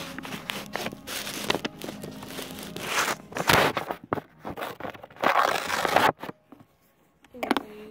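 Paper rustling and crinkling, with small knocks as things are moved about on a tabletop.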